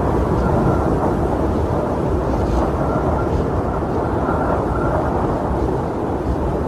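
Blizzard wind: a steady, deep rush of wind noise with little high hiss, holding an even level throughout.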